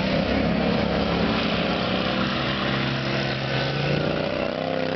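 Racing lawn tractors' engines running hard, several at once, in a steady drone whose pitch shifts slightly near the end.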